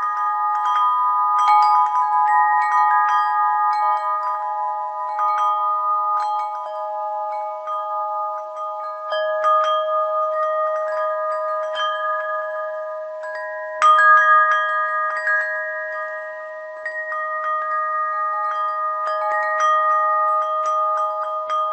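Tuned metal chimes struck at random, several strikes a second. A handful of fixed notes ring on and overlap into a continuous shimmer, with one louder strike about two-thirds of the way through.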